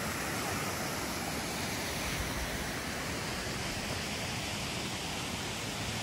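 Waterfalls pouring into a lake: a steady, even rush of falling water.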